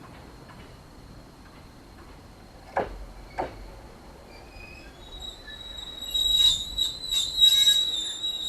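A JR Narita Line train passing with a loud, high-pitched steel wheel squeal that sets in about five seconds in, mixed with rail knocks. Before it, two sharp cracks about half a second apart.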